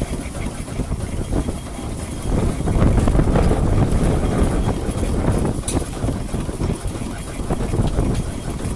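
Steam engine running, turning its flywheels to drive a wood saw: a steady low mechanical rumble that gets louder about two seconds in.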